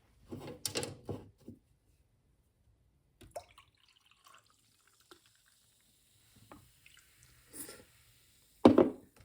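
A few scattered short taps and knocks with quiet gaps between them, several in the first second or so and the loudest near the end.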